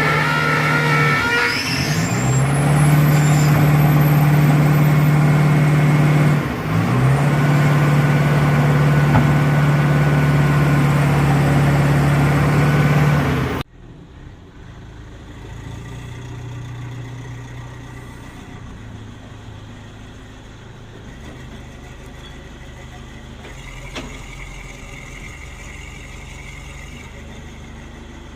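Heavy construction machine's engine running with a loud steady drone, its pitch dipping briefly twice. About halfway through it cuts off abruptly to a quieter, steady engine sound.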